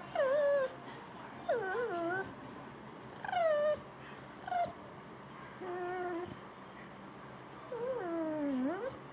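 Beagle whining and yipping in a string of about six short, high cries that slide in pitch, the last one longer, dipping and then rising.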